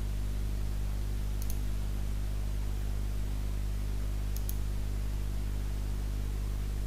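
Two short double clicks of a computer mouse, about a second and a half in and again a little past four seconds, over a steady low hum.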